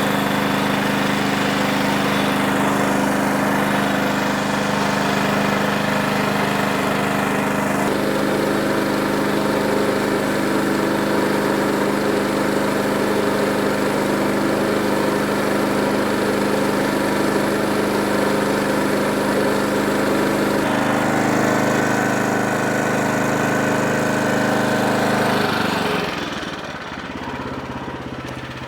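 Sawmill running steadily with its head cutting through a black walnut log. The pitch shifts about 21 seconds in, and the sound drops lower about 26 seconds in as the load comes off.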